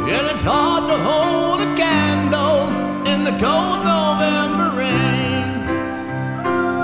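Live band playing a slow rock ballad: sustained keyboard chords changing in steps under a lead line that bends in pitch and wavers with vibrato.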